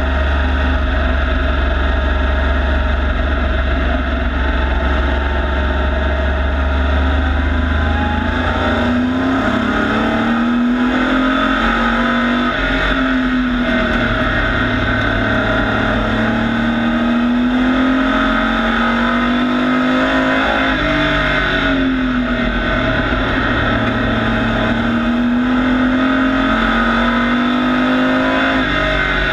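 Pro Truck race truck's engine heard from inside the cockpit while lapping a short oval. It drones steadily for the first several seconds, then its pitch repeatedly rises and falls every second or two as the truck accelerates and lifts through the corners.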